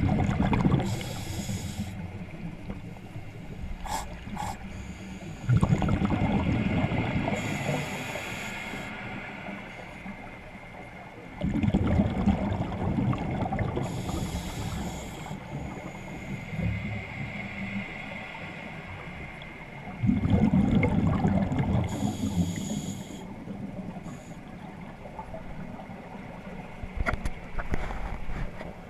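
Scuba diver breathing through a regulator underwater: a rush of exhaled bubbles four times, about every six to eight seconds, each cycle with a short hiss.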